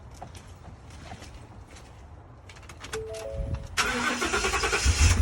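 Car started with a newly cut key: a few soft clicks, a few short electronic beeps, then the starter cranks for about a second and the engine catches and runs near the end.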